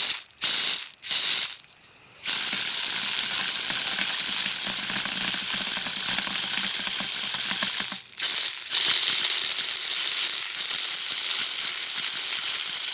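Homemade air-compressor-fed airsoft gun firing: blasts of compressed air hissing through the compressor trigger and tube, spraying out BBs with a rattle. Three short bursts, then two long bursts of several seconds each, broken by a brief pause and a short burst about eight seconds in.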